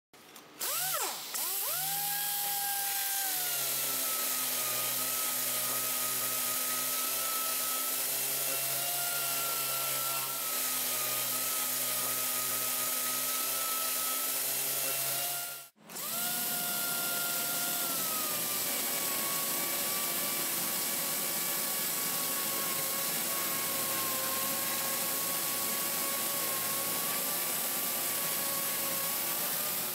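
Handheld orbital disc sander sanding wood. It speeds up with a rising whine, then runs steadily with a high whine. About halfway through it cuts out abruptly and starts again.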